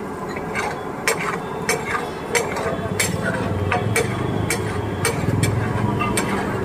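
Metal spatula striking a flat iron pav bhaji griddle as the bhaji is stirred and mashed, sharp clinks about twice a second over a steady low rumble.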